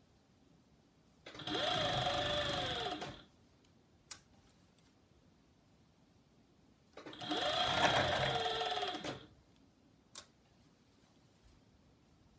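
An MO-6700 series industrial serger stitching a knit waistband on in two short runs of about two seconds each. Each run speeds up and then slows down. A sharp click follows each run.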